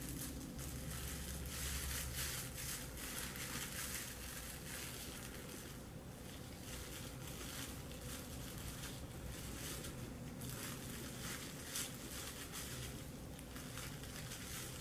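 Plastic cling wrap crinkling on and off as it is squeezed and wrapped around a section of dye-coated hair with gloved hands.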